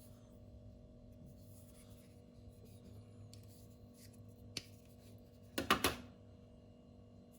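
Steady low hum with faint rustling, a single sharp click a little past halfway, then a quick cluster of louder clicks about a second later.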